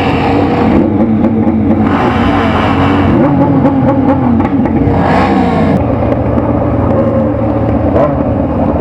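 Motorcycle engine running under way, its pitch rising and falling with the throttle and dropping steadily about five to six seconds in as it slows, over road and wind noise.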